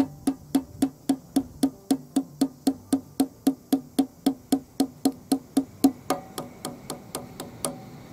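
Background music with a steady wood-block beat, about three and a half strikes a second, over a soft bass line; the strikes grow lighter near the end.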